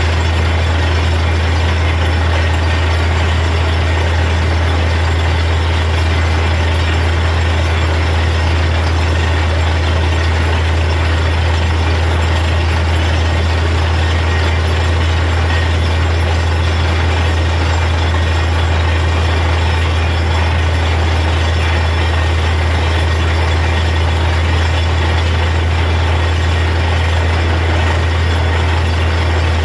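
Truck-mounted borewell drilling rig running steadily while drilling: a loud, constant low engine drone with a steady noisy rush on top as muddy water is flushed out of the borehole around the drill pipe.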